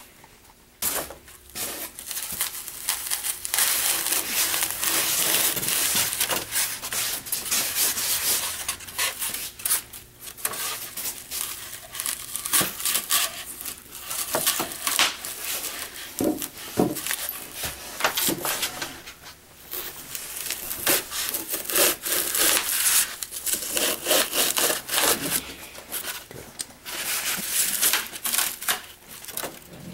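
Box cutter blade sawing back and forth through foam board, cutting out a circle: a run of uneven scratchy strokes with a few brief pauses.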